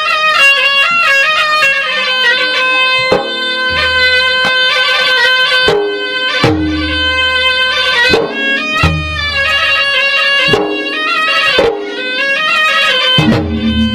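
Traditional Makassar/Bugis gendang ensemble playing: a reedy, bagpipe-like wind instrument holds a continuous wavering melody over steady held tones, while the drums strike a repeating pattern of deep pitched beats about every second or so.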